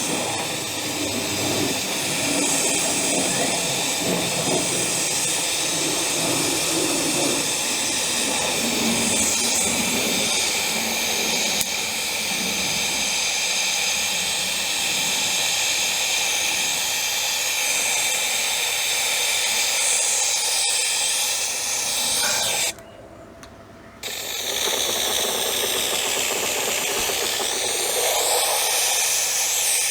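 Steady, loud hissing rush from a tool at work, dropping out for about a second about two-thirds of the way through, then resuming.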